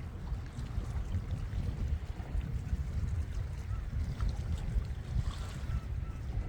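Wind buffeting a phone's microphone: a low, uneven rumble, with a few faint short high sounds about four to five seconds in.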